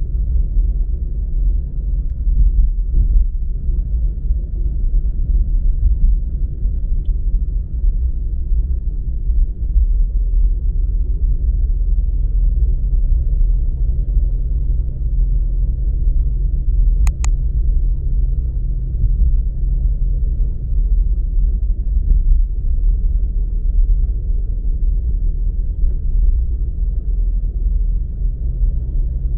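Steady low rumble of a car on the move, road and engine noise, with a faint engine hum and one sharp click about seventeen seconds in.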